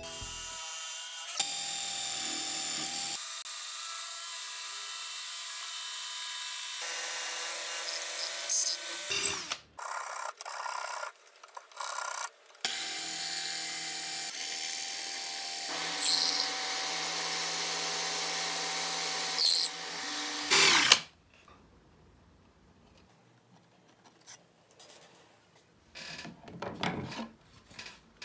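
Power drill running and boring into wood in long stretches, with its pitch shifting between stretches and a few short stops around ten to twelve seconds in. It stops about two-thirds of the way through, leaving only faint knocks and handling sounds.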